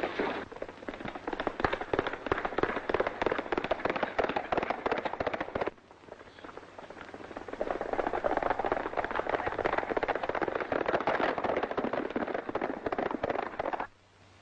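Rapid, continuous clatter of galloping horses' hoofbeats, cutting off sharply once partway through, then starting again and cutting off near the end.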